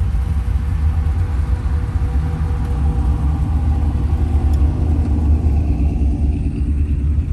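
A line of cars driving slowly past, their engines a steady low rumble, with one engine's note coming up about three seconds in.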